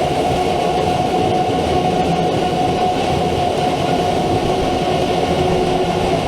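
Fan blowing aluminum chips out of a CNC machine: a steady, loud rushing drone with a held whine over it.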